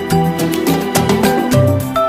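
Background music with a steady beat and pitched melody notes over a bass line.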